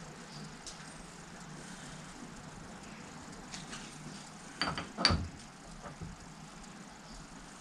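Hand tool clinking against the metal of a Fordson Major's cylinder head and rocker gear: two sharp metal clinks with a brief ring a little past halfway, over a faint steady background.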